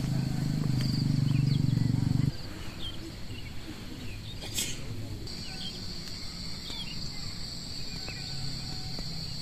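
Birds chirping with short calls, over a low pulsing rumble that cuts off abruptly about two seconds in. From about five seconds in, a steady high insect drone starts and carries on under the birdsong.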